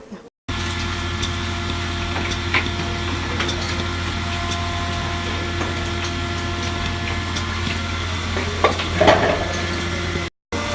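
A machine running with a steady low hum and a few light clicks, with a louder clatter about nine seconds in.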